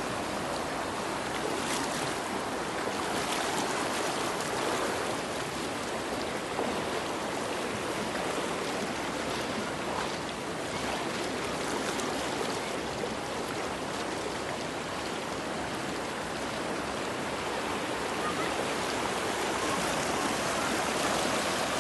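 Water rushing steadily in a mountain stream, an even hiss-like rush with no breaks.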